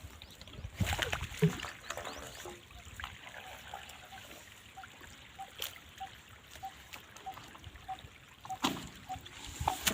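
Water trickling and splashing faintly, with a few scattered knocks and a faint short chirp repeating about twice a second through the second half.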